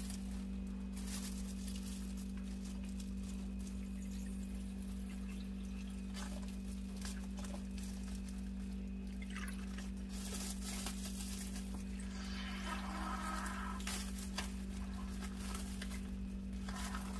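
Milk being poured from a small carton into a plastic bag, with faint trickling and plastic rustles, busiest about ten to fourteen seconds in. A steady low hum runs underneath.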